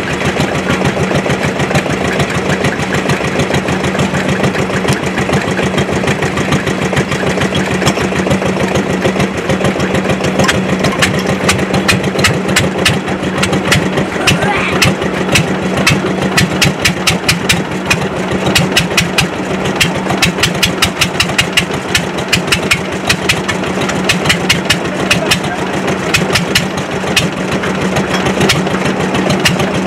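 Vintage Svoboda tractor engine running steadily just after a hand-crank start, with a rapid, even knocking beat that grows more distinct about a third of the way through.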